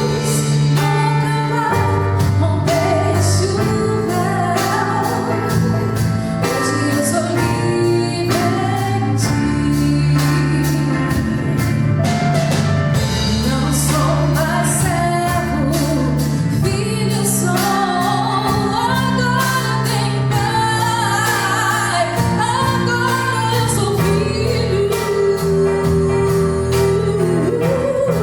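Live band playing a song with sung lead vocals over piano, acoustic guitar, electric bass and drum kit, with a steady drum beat.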